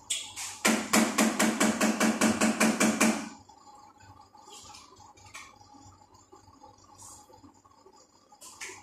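A spoon beating a mixture in a plastic tub: a quick, even run of clacks, about six a second, lasting some two and a half seconds. A few faint clicks follow.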